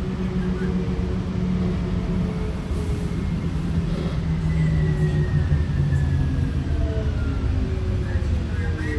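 TriMet MAX light rail train's traction motors whining as it slows for a stop, several motor tones falling steadily in pitch over a constant rumble of the wheels on the rails.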